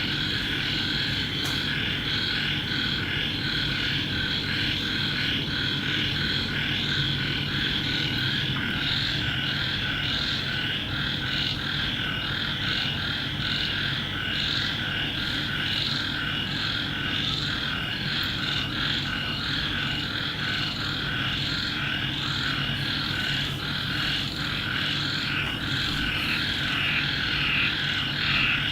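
A steady chorus of calling animals, rapidly pulsing, over a low steady hum.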